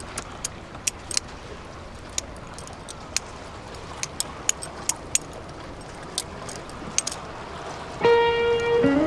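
Butterfly knife (balisong) being flipped: a string of sharp metallic clicks at irregular intervals as the handles swing and clack together, over a steady background hiss. Music with sustained piano-like notes comes in near the end.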